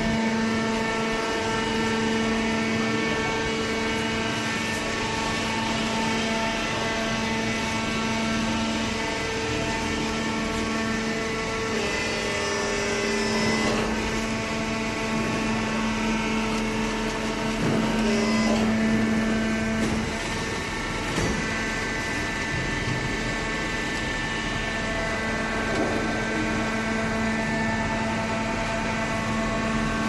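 Hydraulic waste-paper baler's motor and pump running with a steady hum. Its tone shifts briefly about twelve seconds in and again about eighteen seconds in.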